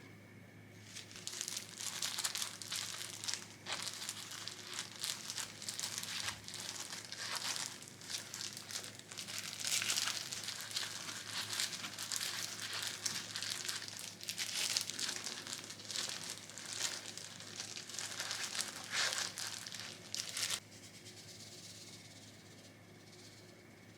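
Crinkly material being handled: continuous irregular crinkling and rustling that cuts off suddenly about twenty seconds in, over a faint steady hum.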